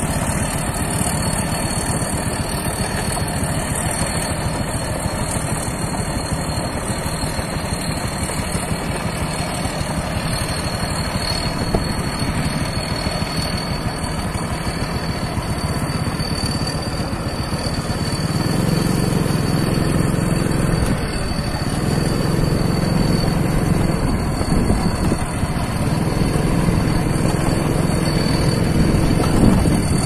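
Tracked rice combine harvester's engine running steadily as the machine drives along, getting louder and heavier from about two-thirds of the way through. A thin, steady high whine sits over it throughout.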